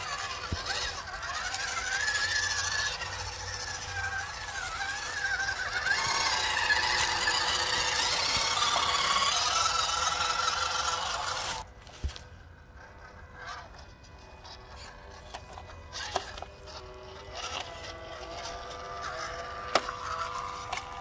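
Small electric motor and gearbox of a WPL C24 RC crawler whining, the pitch rising and falling with the throttle. The whine cuts off abruptly about twelve seconds in, and a fainter, steadier whine follows near the end.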